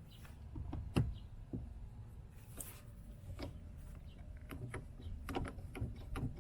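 Knocks and clicks of metal parts being handled: the hydraulic e-brake on its angle-iron bracket being set into the car's transmission tunnel and lined up. A sharp knock about a second in, a brief hiss in the middle, and a quick run of small clicks near the end.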